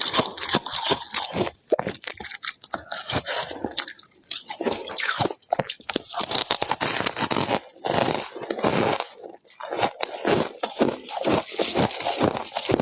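Close-up crunching and chewing of scraped frost ice in the mouth: rapid, irregular crunches that run on with brief lulls.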